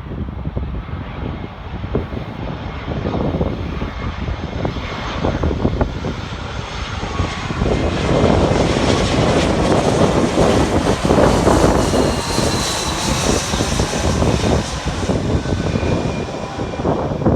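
Jet airliner arriving on approach and passing by: a rushing engine noise that swells and stays loudest through the second half, with a faint high whine that slowly falls in pitch.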